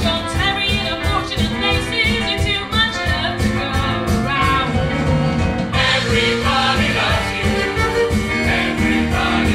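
Musical theatre song: singing over a band with a steady beat, the band growing fuller about six seconds in.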